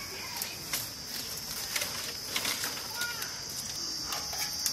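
A steady high insect drone with faint bird calls, and a few soft taps and scrapes as ground chili-ginger paste is gathered off a stone grinding slab by hand.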